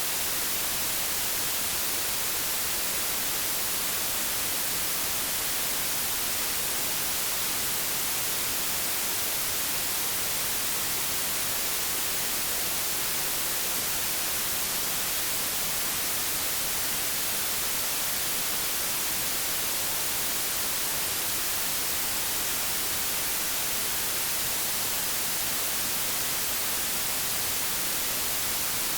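Synthetic white noise test signal, generated at −20 dB: a steady, even hiss that stays the same throughout.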